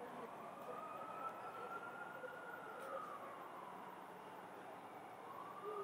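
Emergency-vehicle siren in a slow wail, rising, falling back about four seconds in, then rising again near the end, over a steady hum of city traffic.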